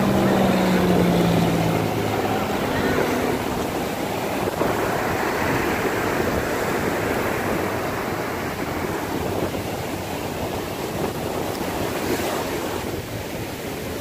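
Ocean surf breaking and washing up the shore in a steady rush of foaming water.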